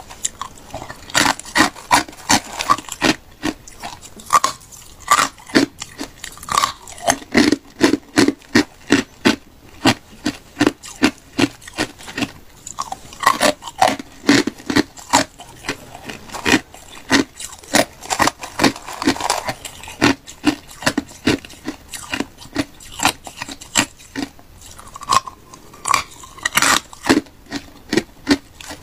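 Hard ice chunks crunched and chewed between the teeth close to the mic: sharp, crisp crunches coming a few a second in irregular runs.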